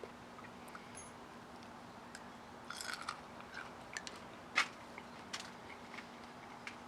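Chewing on a raw Purple Flash ornamental chili pepper: faint, scattered crunches, with a short cluster about three seconds in and a sharper crunch about a second and a half later.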